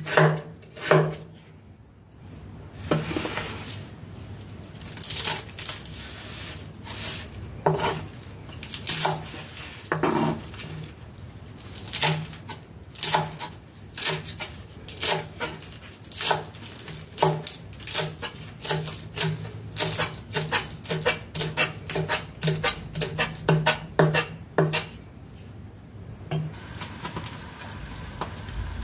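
Kitchen knife chopping vegetables on a wooden cutting board: repeated knife strokes, each with a dull knock from the board. The chopping stops near the end and a faint steady hiss follows.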